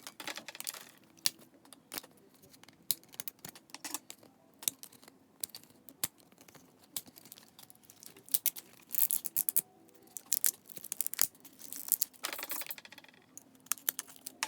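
Blind-pack packaging being torn open and handled: scattered clicks and crinkles throughout, with two longer stretches of tearing and rustling about nine and twelve seconds in.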